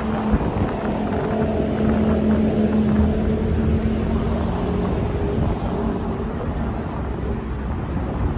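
Street traffic, with a motor vehicle's engine running close by as a steady hum that fades out about five seconds in.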